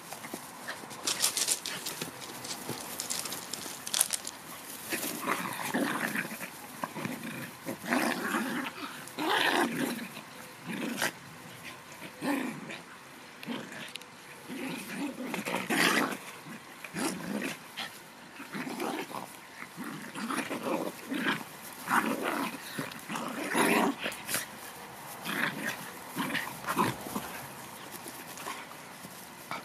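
Dogs play-fighting, growling in short, irregular bursts as they wrestle.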